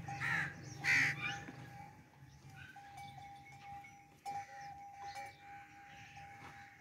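A calf bawling twice in quick succession, two short bleat-like calls about a second apart; quieter shuffling and scattered pen noises follow.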